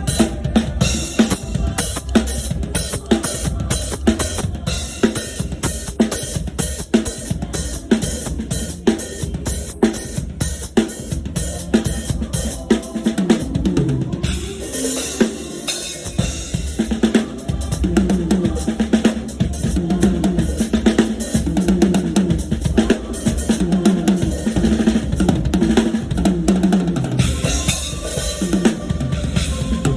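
Drum kit playing a steady, busy groove of kick drum, snare and cymbals. From about halfway through, a low pitched instrument line joins in under the drums.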